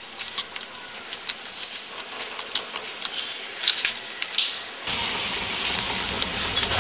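Light clicks of a mobile phone's keys being pressed, a quick irregular run of them. About five seconds in, a sudden cut to a steady outdoor rumble and hiss of a road scene, with a car engine running.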